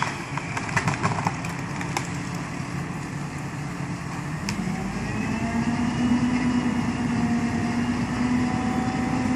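A truck crane's diesel engine running, its revs rising slowly about halfway through and holding higher as it lifts a heavy load. A few sharp clicks come in the first two seconds.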